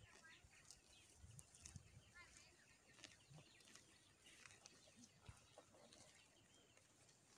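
Near silence: faint outdoor ambience with a few faint, short bird chirps and scattered soft ticks.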